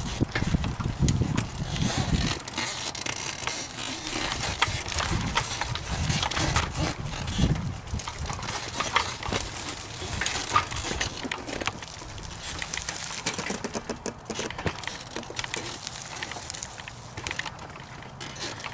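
Irregular crackling and crunching of tyres rolling slowly over rough dirt and dry weeds, with wind buffeting the microphone for the first two seconds.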